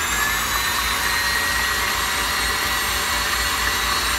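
KitchenAid stand mixer running, beating eggs in its glass bowl: a steady motor whine over an even rushing noise, its pitch rising slightly at the start and then holding.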